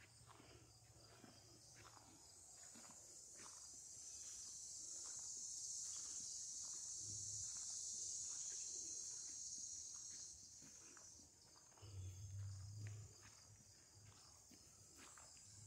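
Faint footsteps of people walking, under a steady high-pitched insect chorus that grows louder in the middle and fades again. A brief low rumble comes about twelve seconds in.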